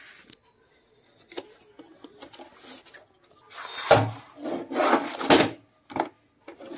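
A plastic VHS cassette scraping as it slides out of its cardboard sleeve, then a few knocks as it is set down on a tabletop and handled. The rubbing is loudest about halfway through, with a dull thud near its start.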